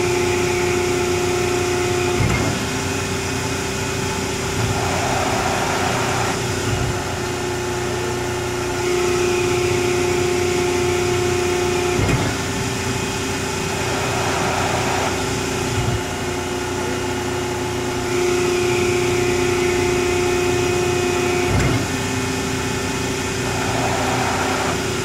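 Cincinnati 400-ton hydraulic press brake running through repeated cycles, about every nine seconds. Its hydraulic pump hums steadily and grows louder under load in each cycle, with a sharp click at each change.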